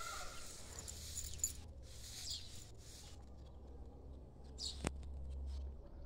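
Faint outdoor ambience: a steady low rumble, a few brief high chirps, and a single sharp click about five seconds in.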